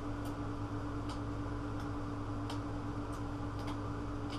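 Steady room hum with a constant tone, with faint light ticks about every two-thirds of a second.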